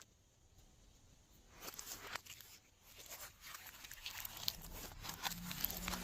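Glossy slime being handled: after a moment of near silence, faint sticky clicks and crackles begin and the soft squishing slowly grows louder.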